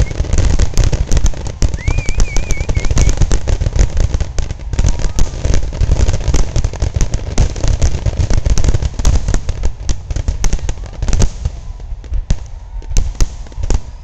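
Fireworks display: a rapid, unbroken run of booms and crackling bangs over a heavy low rumble, with a short warbling whistle about two seconds in. The bangs thin out slightly near the end.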